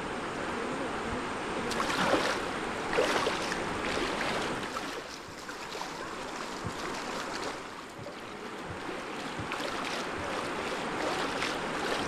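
River water rushing and splashing around the tubers, with louder splashes about two and three seconds in.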